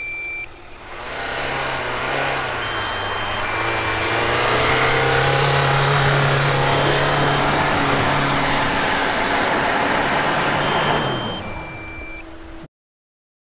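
Dacia Duster's engine pulling hard up a snowy slope in second gear with 4WD locked and ESC off, its note rising over the first few seconds and holding steady, with the tyres churning through snow. Short electronic beeps sound now and then. The engine eases off near the end and the sound cuts off abruptly.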